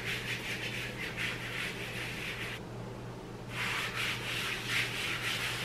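A hand rubbing and spreading flour over a rolled-out sheet of semolina pasta dough on a countertop, a dry brushing sound in two spells with a short pause about halfway.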